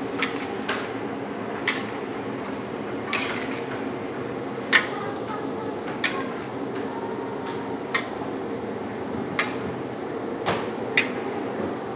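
A large wok full of vegetables being stirred: a stirring utensil knocks and scrapes against the wok about ten times at an uneven pace, over a steady hum.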